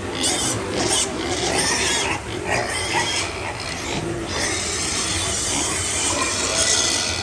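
Piglets making noise, over a continuous rasping, rushing hiss.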